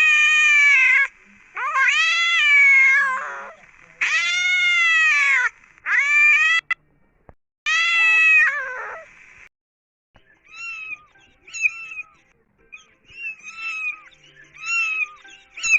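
Cat meowing: about five long, loud, drawn-out meows that rise and then fall in pitch. After a short pause comes a rapid run of short, fainter, higher-pitched kitten mews.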